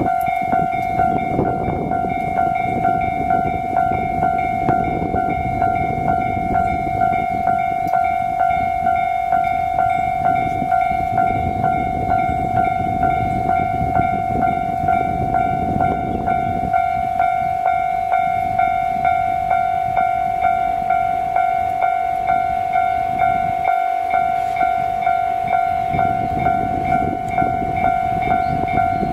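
A railway warning signal sounding continuously as a train approaches: one steady high tone with a regular pulsing beat, over a low rumbling noise.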